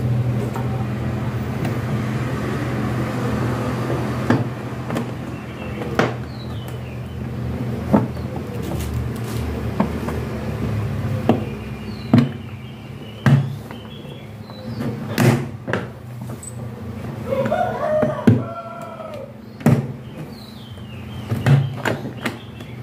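Hard plastic wardrobe panels being fitted together: a dozen or so scattered knocks and clicks as the parts are pressed and snapped into place, over a steady low hum.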